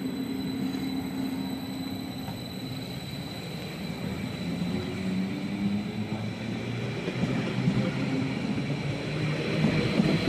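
Electric regional train (a Cantus Stadler FLIRT multiple unit) pulling out and accelerating past the platform. Its wheels rumble on the rails under a steady high whine, and it grows louder toward the end.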